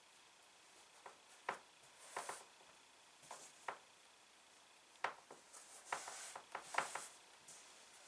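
Faint handling sounds as quilt blocks are pinned onto a fabric design wall: scattered light clicks and ticks with soft fabric rustling, busier in the second half.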